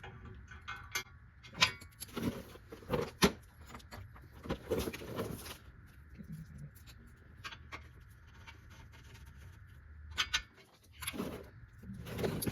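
Irregular metallic clicks, knocks and clatter from a socket wrench with an extension being worked on the skid plate's mounting bolts, with a few louder clanks and pauses between them.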